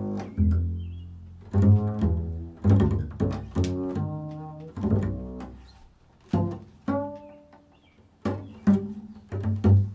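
Upright double bass played solo in an improvised passage: single plucked notes and short phrases, each starting sharply and ringing out as it fades, thinning to near quiet around six to eight seconds in.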